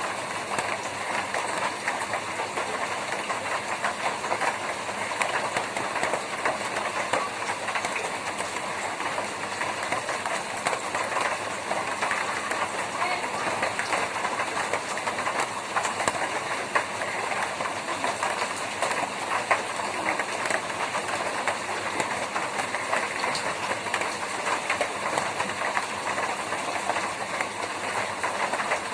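Steady rain drumming on a tin roof: a dense, unbroken spray of drop hits on the metal, even in loudness throughout.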